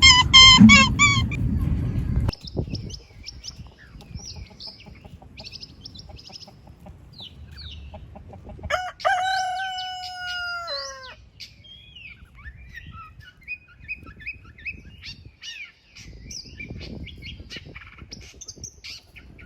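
A rooster crowing once, a long call of about two seconds that drops in pitch at its end, among scattered small high chirping calls. It opens with about two seconds of loud, rapidly repeated animal calls that cut off suddenly.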